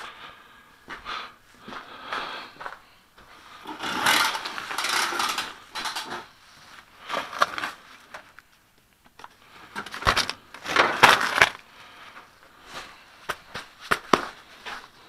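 Irregular rustling, scraping and knocking of someone moving about and handling gear, with no engine running. The louder bursts come about four seconds in and again about ten to eleven seconds in.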